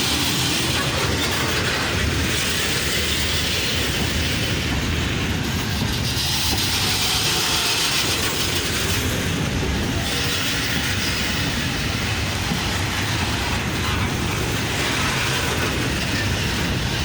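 Wagons of a slowing freight train rolling past, wheels clicking over the rail joints over a steady rumble. A high wheel-on-rail hiss swells and fades several times.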